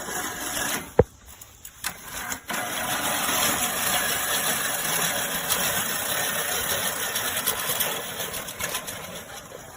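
Push reel mower's five-blade cylinder reel spinning against its bedknife as it is pushed through grass, a steady whirring clatter that starts about two and a half seconds in and fades near the end. A sharp click comes about a second in.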